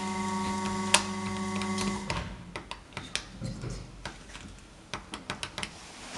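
A steady electric hum inside an elevator car cuts off about two seconds in. It is followed by a quick series of light clicks as the push buttons on the KONE car operating panel are pressed.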